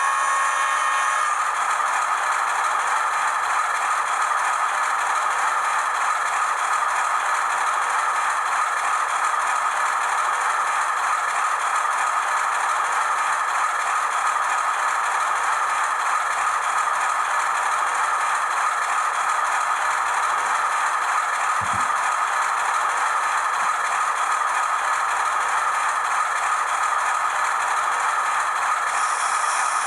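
An HO-scale model diesel-electric locomotive with DCC sound running steadily on its track, giving an even rattling noise, with a brief low thump about two-thirds of the way through.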